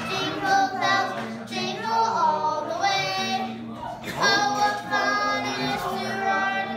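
A young girl singing a song, with a woman's voice joining in at times.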